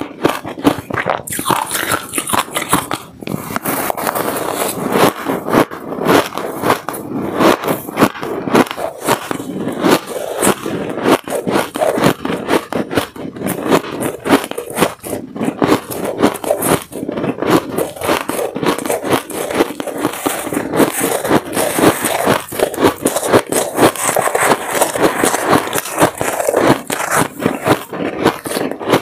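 Shaved ice being bitten and chewed close to the microphone: a dense, irregular run of crisp crunches and crackles. A metal spoon scrapes through the shaved ice as she scoops more.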